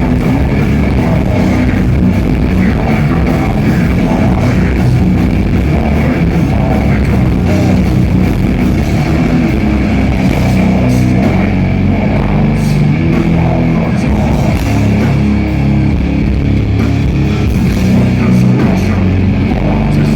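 Death metal band playing live, with heavily distorted guitars and drum kit, loud and dense with no breaks.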